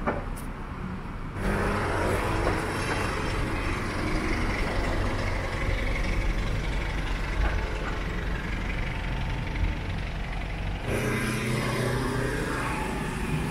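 Road traffic on a busy city street: vehicle engines running and passing, a steady noise that swells about a second and a half in, with a low engine hum coming up near the end.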